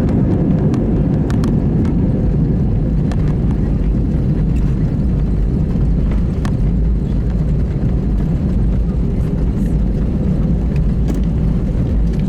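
Airbus A320 cabin noise: a steady low rumble of engines and airflow, with a few faint rattles.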